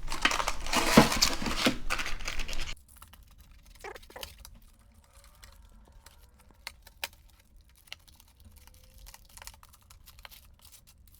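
Dense crackling and rustling of hands handling the pizza and its packaging for about three seconds, which cuts off suddenly, followed by a few faint clicks and taps.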